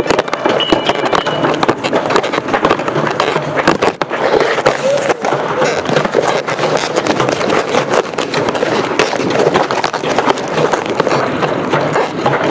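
Continuous irregular clattering and knocking close to the microphone, with people's voices mixed in.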